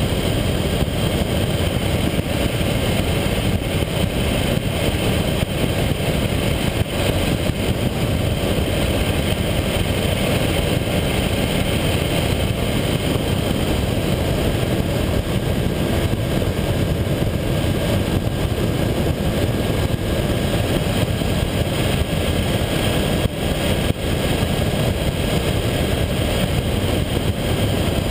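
Honda VFR800's V4 engine running at a steady cruise, heard under a constant rush of wind and tyre noise on a camera mounted low by the front wheel.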